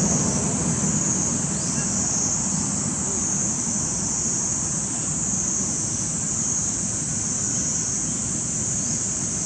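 Steady outdoor background: a constant high-pitched hiss over a low rumble, unchanging throughout, with no distinct events.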